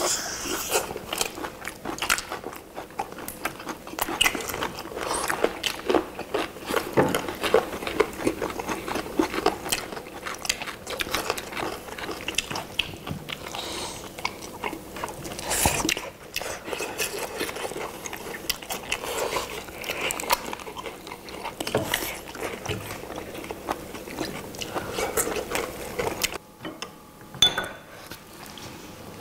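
Several people biting into and chewing sauce-glazed roast chicken legs close to the microphones, a dense run of bites and chews. Near the end the eating stops and a glass clinks once.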